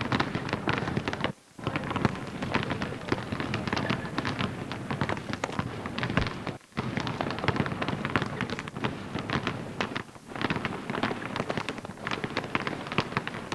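Several basketballs being dribbled on a hardwood court at once, a dense, irregular stream of bounces in a large arena. The sound cuts out briefly three times.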